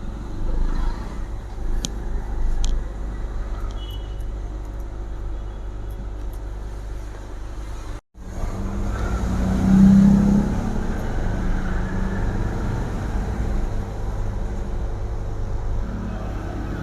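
Steady blowing hum of a hot-air rework station as a surface-mount IC is soldered onto a circuit board, with a few light tool taps in the first few seconds. The sound cuts out for a moment about eight seconds in, then comes back a little louder.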